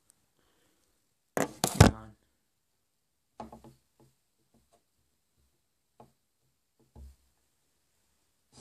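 Handling noise from the camera as it is moved and set down: a loud clatter of knocks and rubbing about a second and a half in, then a few faint scattered taps.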